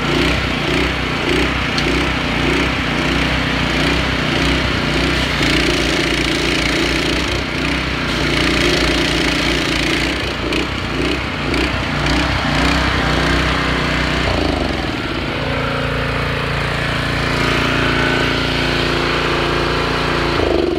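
Two small Honda gas engines (GX200 and GX160) running together, each driving a pressure-washer pump, with a steady loud drone. About three-quarters of the way through, the sound settles into a smoother, steadier tone.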